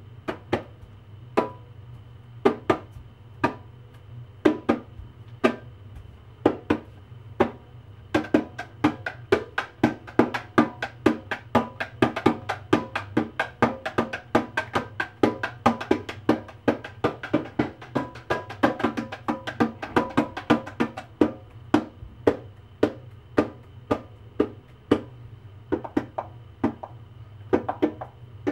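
Small hand drum struck with the bare hand in sharp taps: spaced out at first, then a fast, dense run of taps from about a third of the way in, thinning out again near the end. A steady low hum sits underneath.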